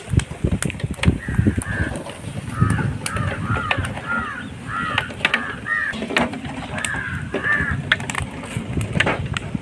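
Crows cawing over and over: a run of about a dozen short, arched calls, with scattered clicks and knocks underneath.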